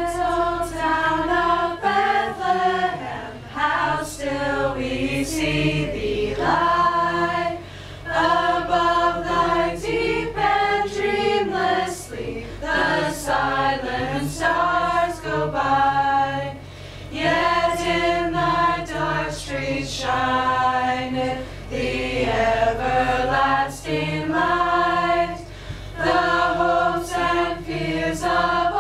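A small group of men and women singing a Christmas carol unaccompanied, in held sung phrases with short breaks for breath between them.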